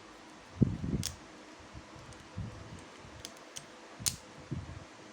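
Handling noise from plastic Beyblade spinning-top parts: a few soft low bumps and several short, sharp clicks.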